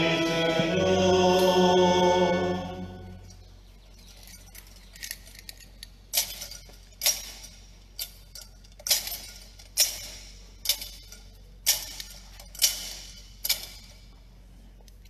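A sung chant that fades out about three seconds in. Then a thurible's chains and lid clink against the metal censer about once a second, around a dozen times, as it is swung to incense the Gospel book.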